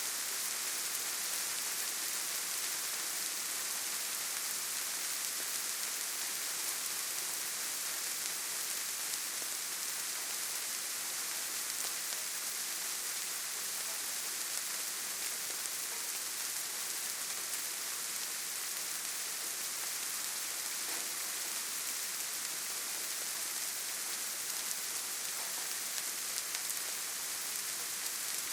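Steady light rain falling, an even hiss of many small drops with faint scattered patters.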